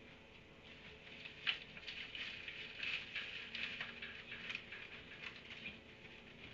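Small animals squabbling: a run of short, high squeaks and chirps with scuffling, and one sharp click about one and a half seconds in.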